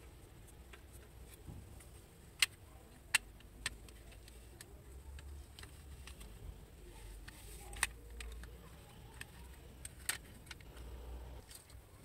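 Plastic TV remote-control case being handled and pressed shut over its rubber keypad: about five sharp plastic clicks and snaps spread through, with soft rubbing and handling noise in between.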